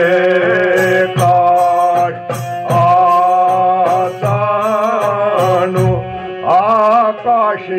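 Kashmiri devotional song: a melody in held, wavering notes over a steady drone, with a regular drum beat underneath.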